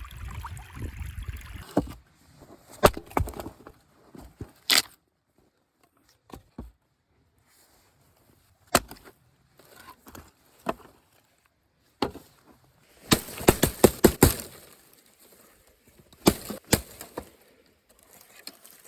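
Dry sticks being snapped and broken by hand: single sharp cracks with pauses between them, then a quick run of cracks about two-thirds of the way through. At the start a rushing, creek-like noise runs for about two seconds and cuts off suddenly.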